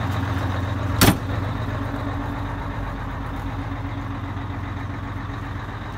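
A 1985 Hahn fire engine's 6V92TA Detroit Diesel, a turbocharged two-stroke V6, idling steadily, growing slightly fainter toward the end. A single sharp knock cuts across it about a second in.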